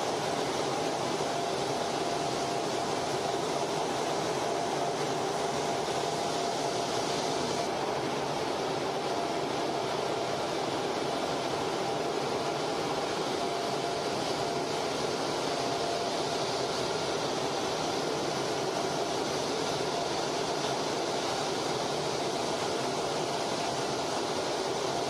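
Steady cockpit noise inside a Blue Angels F/A-18 Hornet flying in formation: constant jet-engine and airflow rush with a thin, steady mid-pitched whine. The hiss turns slightly duller about a third of the way in.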